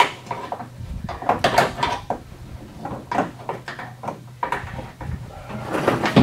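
Irregular plastic clicks, knocks and rustling from hands working behind a truck's headlight housing, seating an LED headlight bulb and snapping its wiring connectors together. The loudest knock comes near the end.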